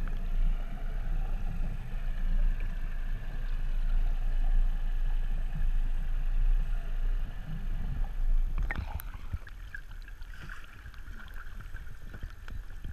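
Muffled underwater sound heard through a camera housing: a low rumble that swells about every two seconds, with a diver's breathing bubbles. About nine seconds in it cuts off, and lighter water splashing and lapping at the surface takes over.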